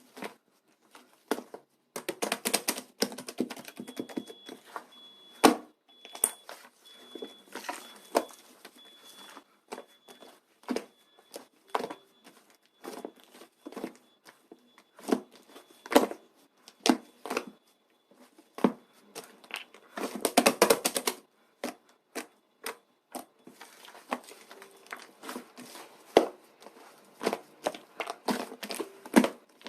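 Irregular close-up clicks, crackles and crinkling from material being handled, densest about two seconds in and again around twenty seconds, with a faint steady high tone through the middle.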